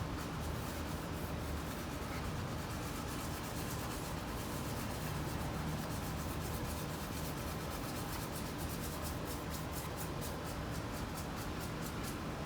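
Hand rubbing on the wooden push-up bars in fast, repeated strokes, with the strokes growing more distinct in the second half.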